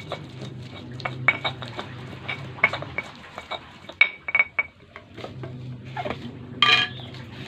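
Stone pestle knocking and grinding against a stone mortar, crushing chili paste: irregular sharp clicks of stone on stone, several a second, thinning out after about five seconds. A short harsher scrape near the end.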